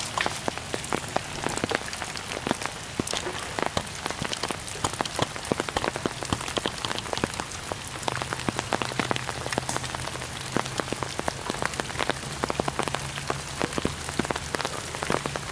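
Steady rain pattering on an umbrella overhead, a dense scatter of small drop ticks.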